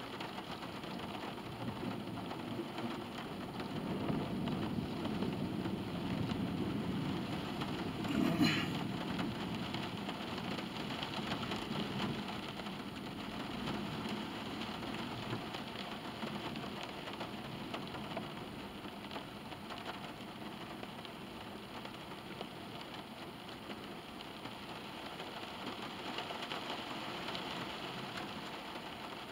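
Steady rain drumming on a car's roof and windows, heard from inside the cabin, swelling a little in the first half. A brief thump about eight seconds in stands out as the loudest moment.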